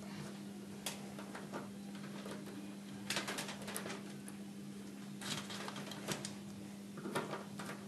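Screwdriver tightening a wire's screw in a plastic bar connector (terminal strip): faint, scattered clicks and scrapes in several small clusters, over a low steady hum.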